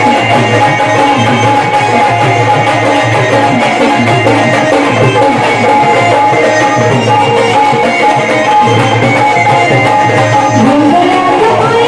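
Instrumental break in a Marathi devotional gondhal song: a steady hand-drum rhythm under a wavering melody line, with no singing.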